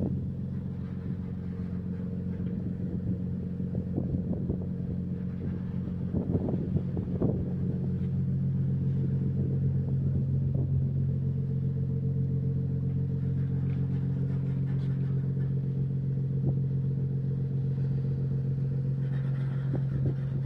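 A ship's engine droning steadily, with a few brief knocks.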